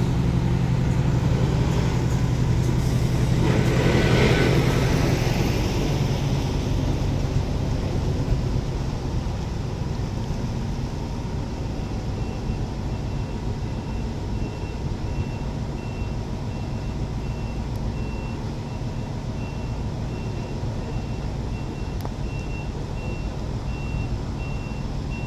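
Heavy Isuzu diesel truck engine running and pulling away, with a rush of hiss about four seconds in, then easing to a steady low rumble. From about twelve seconds a vehicle's reversing alarm beeps repeatedly, getting louder toward the end.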